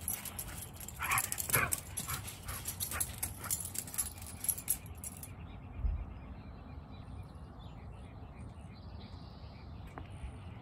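An Irish Terrier and a Kerry Blue Terrier playing: a couple of short yelping calls about a second in, among rapid scuffling clicks. After about five seconds it goes quieter.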